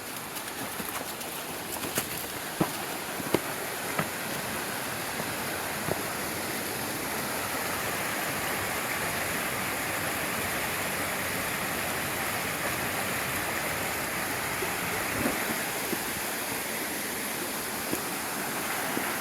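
Mountain creek water rushing over rocks, a steady noise that grows louder about a third of the way in. A few sharp knocks sound in the first few seconds.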